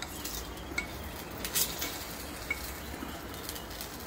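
Metal utensil scraping and clicking against a nonstick frying pan and a plate as tawa-fried brinjal slices are lifted out and served: a few short scrapes and taps, the loudest about a second and a half in.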